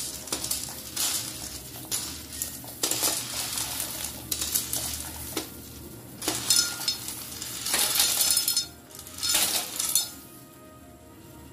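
Hard dry pasta sliding off a plate into a pot of boiling water: repeated clinks and rattles of the pieces against the plate and the aluminium pot, with splashing, dying down near the end.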